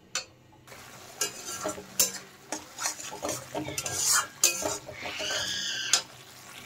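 A metal spatula repeatedly scraping and stirring thick spice paste around a metal kadai, the paste sizzling in hot oil as the masala is fried down. A brief high squeal comes about five seconds in.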